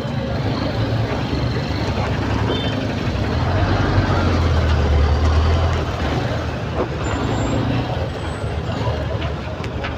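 Highway traffic noise close beside a heavy truck: a steady engine rumble that swells about four seconds in and eases again by six seconds.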